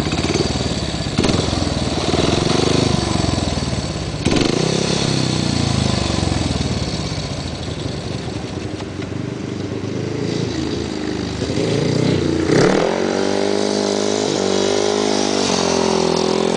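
Speedway motorcycles' single-cylinder engines revving up and down, their note rising and falling as bikes circle the track. About twelve seconds in, a bike close by becomes much louder, running with a steady, slightly wavering note.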